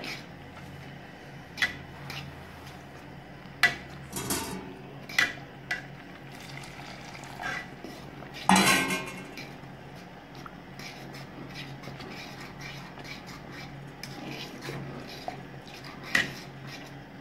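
A spoon scraping and knocking against an aluminium pot while vigorously stirring thick cornmeal porridge, with irregular clinks and a louder clatter about halfway through.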